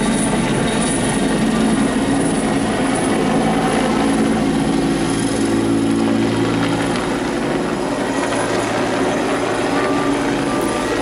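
Helicopter flying overhead: steady rotor and engine noise.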